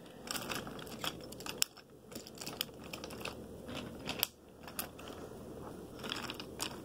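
Quiet, irregular light clicks and rustling, about one or two a second: handling noise close to the microphone.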